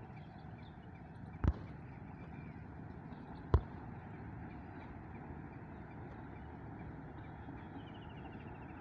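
Steady low background noise broken by two sharp knocks about two seconds apart, the second louder.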